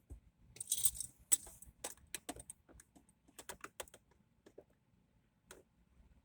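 A quick run of light clicks and rattles, about a dozen irregular ones over the first few seconds, then a single click near the end.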